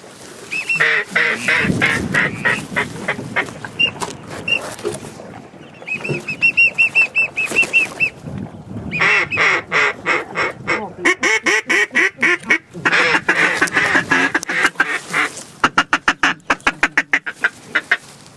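Duck quacking in repeated runs of short, nasal notes, broken by brief pauses. Near the end it turns into a very fast chatter.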